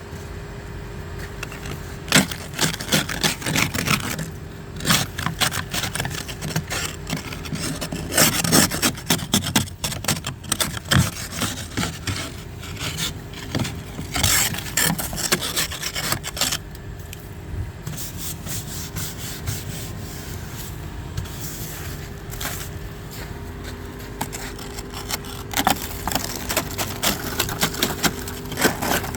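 Repeated rasping scrapes on snow and ice, coming in irregular strokes, over a steady low hum.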